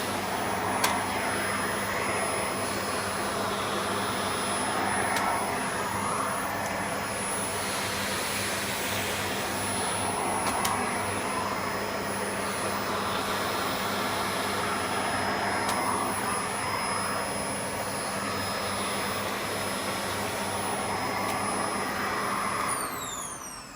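Vacuum cleaner running steadily with a high motor whine. Near the end it is switched off and the whine falls away as the motor winds down.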